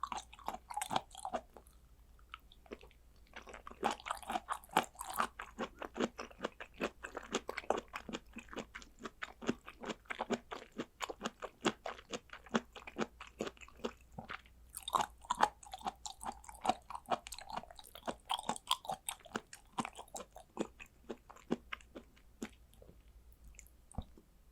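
Chewing and biting of raw blood clam (ark shell) sashimi: a steady run of quick mouth clicks, busiest about four seconds in and again from about fifteen to twenty seconds, thinning out toward the end.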